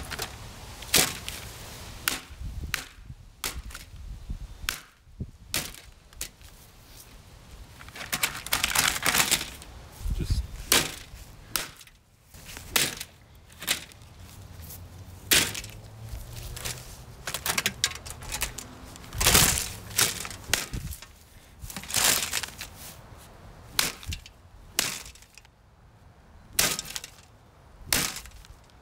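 Plastic Holmes box fan being struck and breaking: a long string of sharp, irregular cracks and knocks, a few of them with a longer crunching tail.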